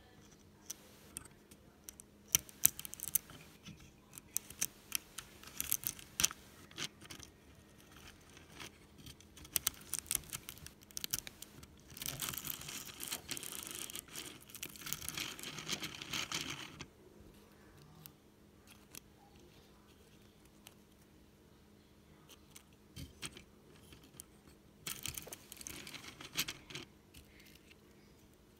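Dry leaves crackling and tearing as they are fed through a hand-powered LEGO shredder's plastic rollers, with many irregular sharp clicks. A dense stretch of crunching runs from about twelve to seventeen seconds in, then a quiet spell, then another short burst near the end.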